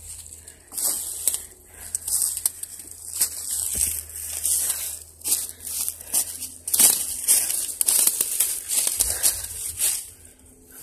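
Footsteps crunching through dry leaf litter and twigs in irregular steps, easing off briefly near the end.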